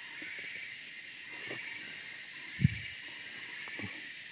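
Steady high-pitched hiss of a forest insect chorus, with one brief soft knock about two and a half seconds in.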